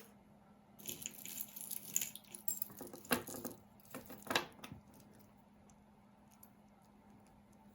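Jewelry pieces clinking and rattling as they are handled, with a few sharper clicks about three and four and a half seconds in; the handling stops about halfway through, leaving only a faint steady hum.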